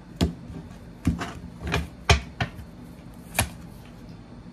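Cards being laid down and tapped on a wooden tabletop: a series of sharp taps and slaps, about seven in four seconds, the loudest about two seconds in.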